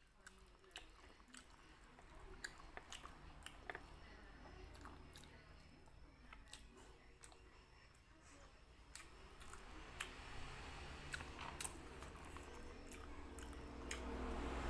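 Close-miked chewing and biting of chewy beef skin (kikil), with frequent small wet mouth clicks and smacks.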